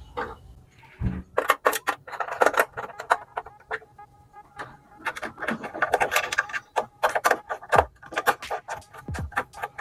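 Small metal screws clinking and a screwdriver clicking while a motherboard's screws are fitted. The clicks and rattles come in two long, quick runs: the first begins about a second and a half in, the second about halfway through.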